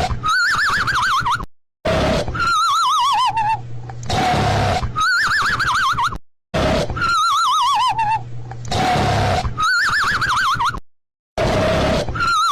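Cartoon snoring sound effect on a loop: a snore, then a whistling breath out whose pitch wobbles rapidly up and down, twice per cycle. Each cycle ends in a brief silent break, about every four and a half seconds.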